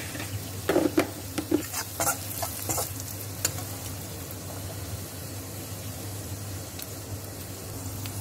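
Rasam powder and spices frying in hot ghee in a steel pan, sizzling steadily, with a spoon scraping and knocking against the pan several times in the first three or so seconds as the mixture is stirred.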